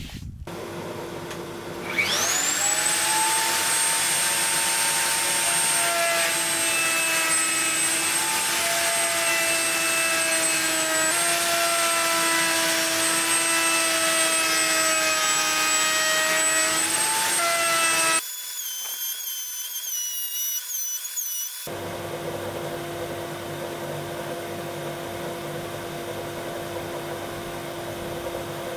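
Router in a router table spinning up about two seconds in to a steady high whine, its pitch dipping slightly as the bit trims the edge of a plywood tabletop. Past the middle it drops to a quieter, steady machine hum.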